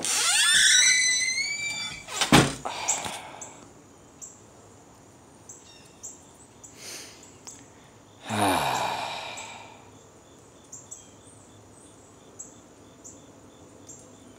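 A door squeaking on its hinges as it swings, rising and bending in pitch, then shutting with a thunk. Afterwards there is quiet outdoor background with small regular chirps of birds or insects, and a brief rushing sound falling in pitch about eight seconds in.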